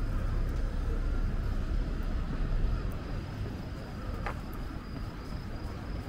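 City street ambience: a low traffic rumble that eases about halfway through, a faint steady high tone, and a single short click about four seconds in.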